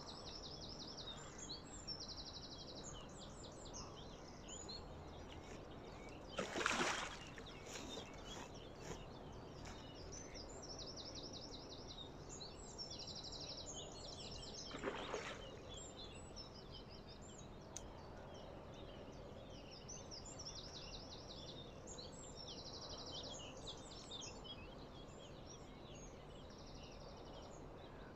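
Songbirds singing in the morning air. One bird repeats a short song of quick notes ending in a buzzy note. Twice, about a third and halfway through, there is a brief louder rushing noise.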